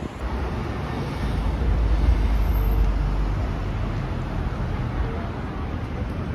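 Street traffic noise: a steady wash of road sound with a deep rumble that swells about one to three seconds in.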